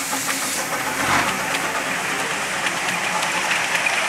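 Miniature steam locomotive chuffing past with rapid, even exhaust beats over a steady steam hiss, with a louder burst about a second in.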